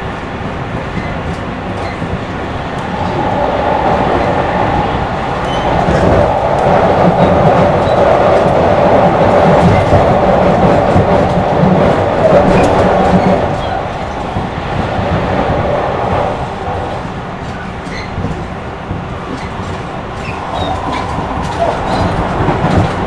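Running sound of a Tobu Railway commuter electric train, heard from inside the car: motor hum and the rumble of wheels on rail. It grows louder a few seconds in, stays loud for several seconds, then eases off again.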